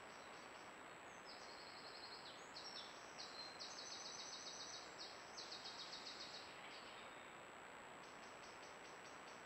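Faint, rapid, evenly pulsed high-pitched chirping trills, typical of an insect stridulating, from about a second in until about seven seconds in, over steady microphone hiss and a thin high whine.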